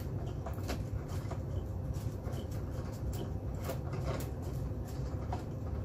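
Faint irregular clicks and rubbing of plastic filament being pushed by hand through the feeder and feed tube of a da Vinci Mini W+ 3D printer, over a low steady hum.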